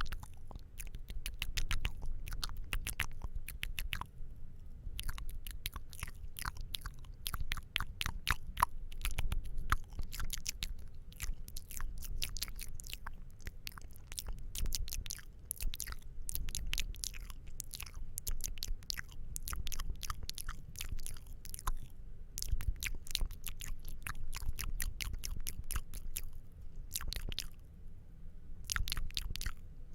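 ASMR mouth sounds: wet clicks and smacks of tongue and lips in quick runs, broken by a few short pauses.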